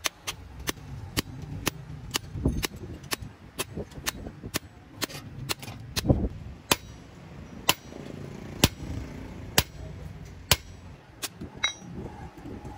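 Hand hammer striking a steel piece held on the hub of a truck clutch plate: sharp metal-on-metal blows, about two a second at first, slowing to about one a second about halfway through.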